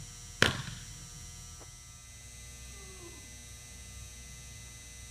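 A pitched baseball smacking into a catcher's leather mitt once, a sharp pop with a short echo in a large indoor hall, over a steady electrical hum.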